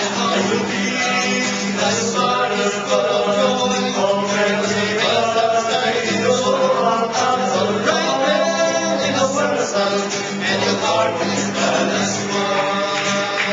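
Small group of men singing together in harmony, accompanied by a strummed acoustic guitar.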